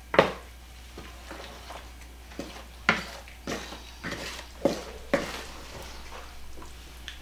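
Wooden spoon stirring rotini pasta through a thick sour cream and salsa sauce in a large mixing bowl: irregular knocks and scrapes of the spoon against the bowl, the sharpest just after the start and about three seconds in.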